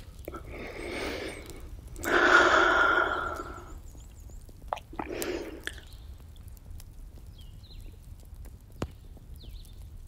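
Close-miked breaths of a woman smoking through a long cigarette holder: three breathy draws and exhales of smoke, the loudest about two seconds in. Underneath runs an added campfire crackling track: a steady low rumble with a few sharp pops.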